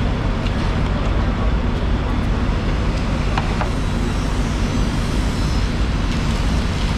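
Steady low rumbling background noise, like machinery or traffic, with a faint click about three and a half seconds in.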